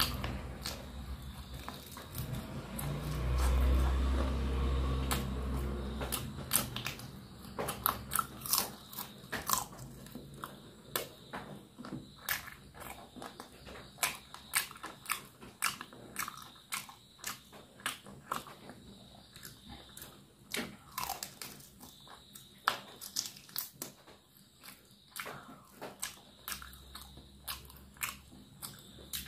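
Close-up eating sounds of spiced chicken leg pieces being bitten and chewed with the mouth open, with many short sharp crunches. A low rumble underneath from about 3 to 6 seconds in is the loudest part.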